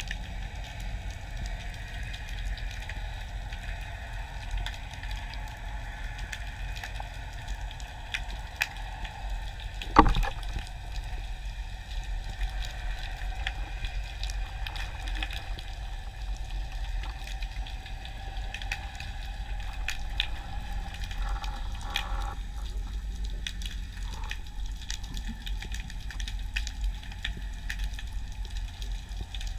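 Underwater ambience as picked up by a diver's camera: a steady low rumble with scattered faint clicks and crackles, and one sharp knock about ten seconds in.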